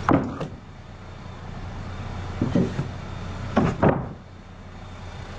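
An engine idling with a steady low hum, with a couple of short pitched sounds about two and a half and three and a half seconds in.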